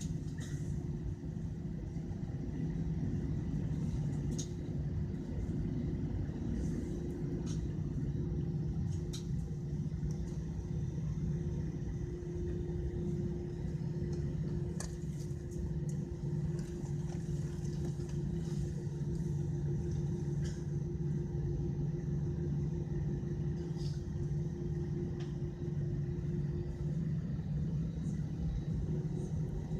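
Airliner jet engines idling, heard from inside the passenger cabin as the aircraft holds on the runway before the takeoff run: a steady hum over a low drone. A few faint clicks come now and then.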